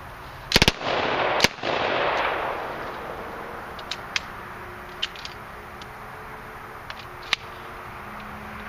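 A full-auto Ingram MAC-10 in .45 ACP fires a short burst of a few shots, then one more shot about a second later, followed by a rush of noise that fades over about a second. Scattered light metallic clicks follow as the gun is handled. The firing stopping so soon fits the shooter's account that the magazine slipped out because it does not fit well.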